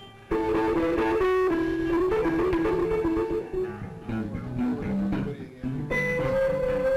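Guitar-led rock music with bass: picked electric guitar lines that start just after a brief dip at the start, with a long held note coming in about six seconds in.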